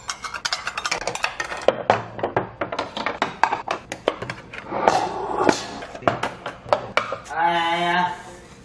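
Stainless-steel rice bowls, earthenware soup bowls and small dishes being stacked on a wooden table, a run of clinks and clattering knocks as the empty tableware is cleared together. A voice sounds for about a second near the end.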